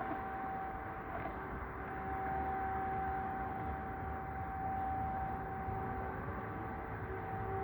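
Distant air-raid siren sounding a steady tone over a low rumble, the signal of an air-raid alert.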